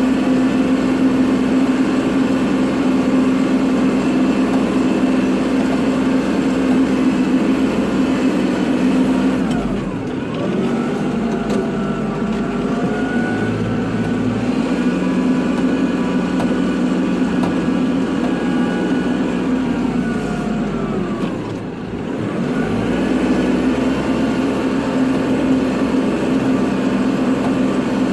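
Kubota tractor's diesel engine running steadily at working speed. About a third of the way in, the engine speed drops, with a higher whine over it. It comes back up to speed about two-thirds of the way through.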